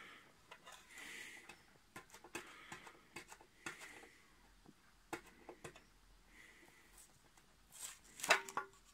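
Fingernails picking at and peeling tape off the plastic front cap of an Astroscan telescope tube: faint scratches and small clicks, then a louder raspy tearing as the tape comes away near the end.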